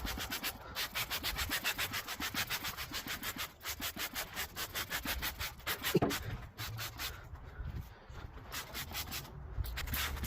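Scrubbing a greasy microwave part by hand: quick back-and-forth rubbing strokes, about five a second, with a couple of short pauses.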